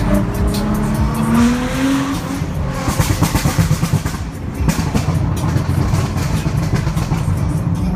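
Nissan R35 GT-R's straight-piped twin-turbo V6, heard from inside the cabin, revving up in second gear over the first two seconds, then popping and crackling on the overrun for a couple of seconds before running on steadily.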